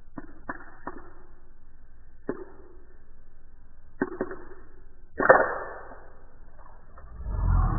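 A walnut shell clicking and creaking as it is squeezed in a bare fist, then cracking open with a loud crackle about five seconds in. Shell pieces crunch and rustle in the hand near the end.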